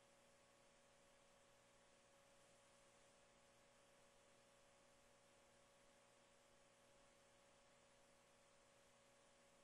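Near silence: a faint steady hiss with a low electrical hum from the broadcast feed.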